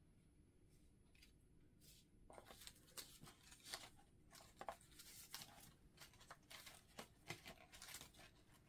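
Faint rustling and light clicking of paper cut-outs being sorted by hand in a plastic storage box, in many short, uneven sounds starting about two seconds in.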